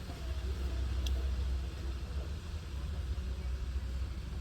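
Mahindra Bolero BS6 diesel engine idling with a steady low rumble; a faint click about a second in.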